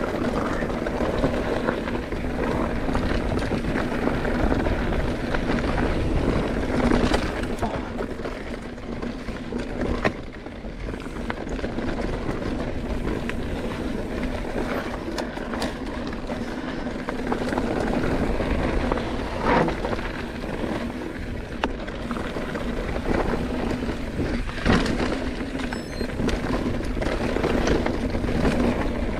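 Mountain bike descending a dirt trail at speed: a steady rush of tyre and wind noise, with rattling and several sharp knocks as the bike hits bumps.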